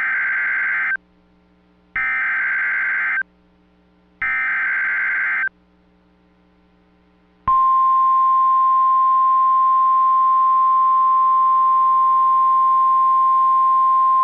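NOAA Weather Radio Emergency Alert System tones. Three SAME digital header bursts, each a harsh data screech about a second long with a second's gap between them, announce a new alert. About seven seconds in, the steady 1050 Hz weather radio alert tone starts and holds.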